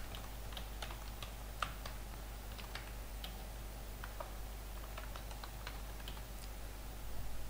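Typing on a computer keyboard: a short phrase tapped out in irregular keystrokes, which stop about a second before the end. A faint steady low hum runs underneath.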